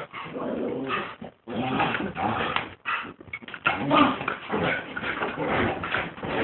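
Dogs playing together, making rough play noises that come and go, with short breaks about a second and a half in and again around three seconds.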